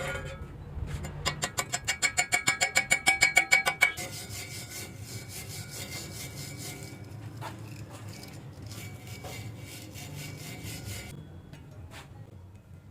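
Rapid metal-on-metal scraping strokes, about eight a second with a ringing tone, then about four seconds in a steady crackling hiss that stops near the end.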